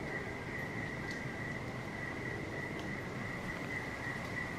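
Insects trilling steadily at one high pitch, with a few faint ticks.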